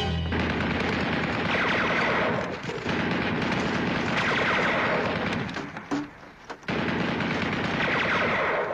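Machine-gun fire: rapid, continuous shots in three long bursts, broken briefly about two and a half seconds and six seconds in.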